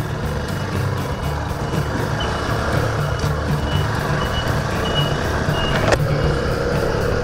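Motorcycle engine running steadily under way, with wind and road noise. A run of short high beeps sounds through the middle, as from a vehicle's reversing alarm, and there is one sharp knock near the end.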